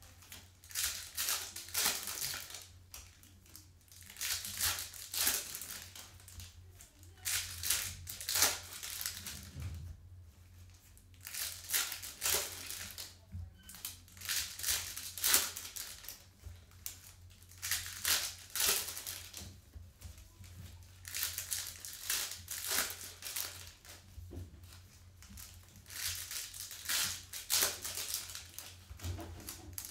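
Foil wrappers of Optic basketball card packs crinkling and tearing as they are ripped open by hand, in repeated irregular bursts, with the cards slid out and handled in between.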